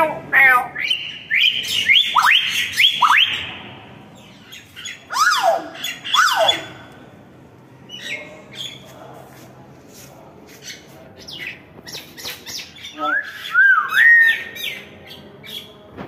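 Hill myna calling: a quick run of loud, sharply sweeping whistles and squawks, then two long falling whistles. After a quieter stretch of faint clicks, a wavering rising whistle comes near the end.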